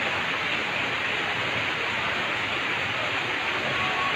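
Steady rushing of water, an even hiss without rhythm or pauses.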